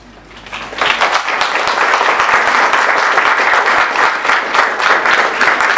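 Audience applauding: the clapping starts about a second in, swells quickly and carries on steadily.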